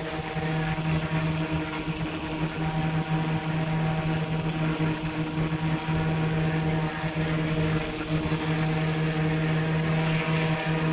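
Steady hum of a propeller-driven aircraft motor close to the microphone, holding one pitch with a stack of overtones over a light rushing hiss.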